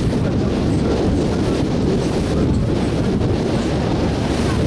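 Steady wind rumble on the microphone from a moving boat, mixed with boat and water noise.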